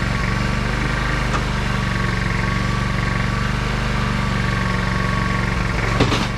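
Portable generator engine running at a steady speed, with a short clatter near the end.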